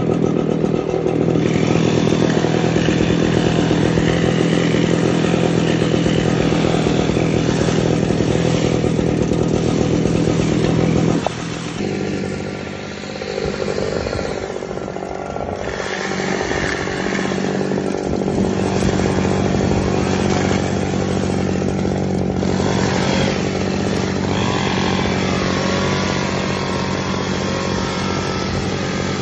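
Echo two-stroke gas hedge trimmer engine running steadily; its level drops suddenly about a third of the way through, then it runs on.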